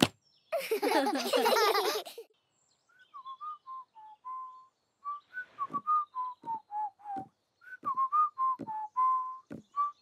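A cartoon character whistling a tune as a string of short notes that step up and down, with a few soft taps under some notes. Near the start, a burst of several voices together lasts about a second and a half.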